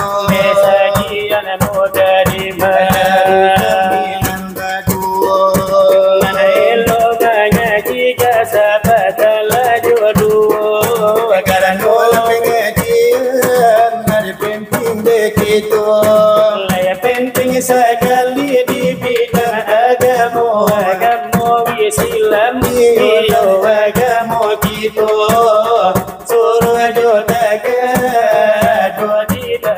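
Salawat dulang: two men's voices singing a melismatic Minangkabau devotional chant while both beat a fast, dense rhythm with their fingers and palms on large brass trays (dulang).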